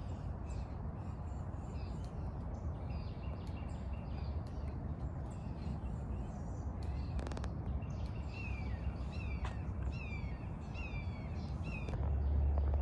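Several birds calling, with a run of about five or six short downward-slurred calls in the second half, over a steady low rumble.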